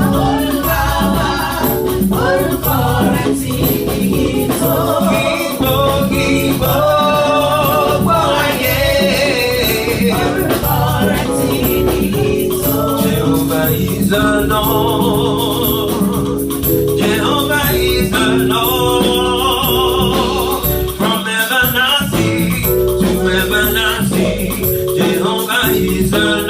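Gospel worship song: voices singing over instrumental accompaniment, with light percussion keeping a steady beat.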